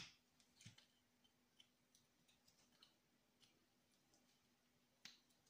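Near silence broken by faint small clicks and ticks from a hand tool working the tiny carburettor screws on a model nitro engine, with a sharper click at the start and another about five seconds in.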